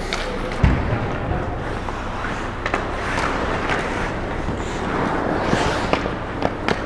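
Ice hockey play around the net: skates scraping and carving the ice over a steady arena rumble, with scattered sharp clacks of sticks and puck and a heavy thump a little under a second in.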